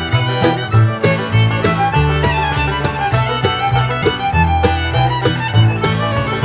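Upbeat background music with a fiddle melody over a bass line and a steady beat.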